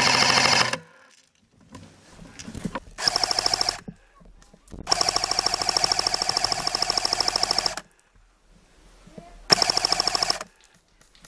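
Airsoft automatic electric gun firing full-auto bursts: a rapid, even rattle of shots with a steady whine. One burst ends just under a second in, a short burst follows at about three seconds, a longer burst of about three seconds comes next, and a short burst near the end.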